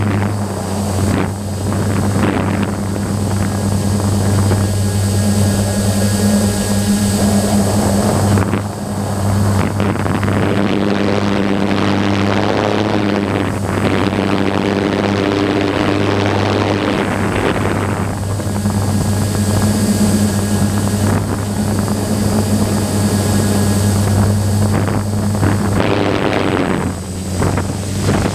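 DJI F550 hexacopter's six electric motors and propellers humming steadily in flight, heard close up from the onboard camera. A rushing hiss swells and fades over it for several seconds at a time.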